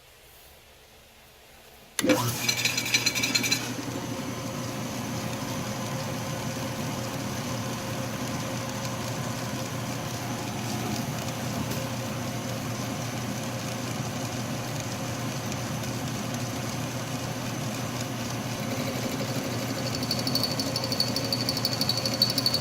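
Atlas metal lathe switched on about two seconds in, with a brief high-pitched burst as it starts, then running steadily at about 778 RPM with a roughing end mill turning in the spindle. A high steady tone joins near the end.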